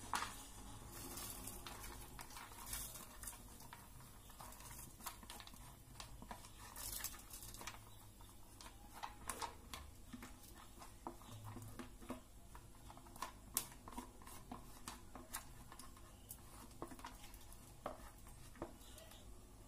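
Faint, irregular scraping and tapping of a silicone spatula against a plastic box as washed rice ada drops into a steel saucepan of hot water, with light patter.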